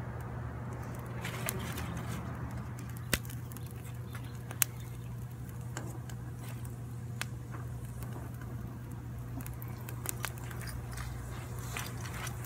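Small twig-and-stick kindling fire catching and crackling, with a few sharp pops from the burning wood, the loudest about three and four and a half seconds in. A steady low hum runs underneath.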